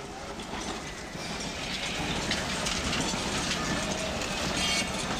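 A Calcutta electric tram running on street rails, getting louder over the first couple of seconds as it nears, with high-pitched metallic streaks and ticks from the wheels and track.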